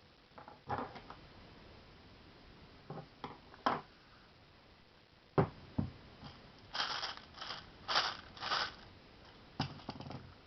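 Handling noises of small objects: scattered knocks and clicks, a run of four or five short rustling scrapes past the middle, then a few more clicks near the end.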